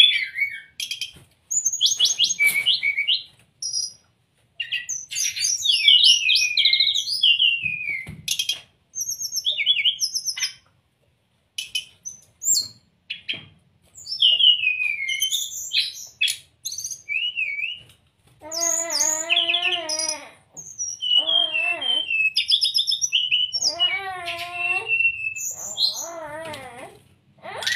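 Brown-chested jungle flycatcher singing: bursts of quick high chirps and whistled notes broken by short pauses. Twice in the second half come lower, wavering, buzzy calls.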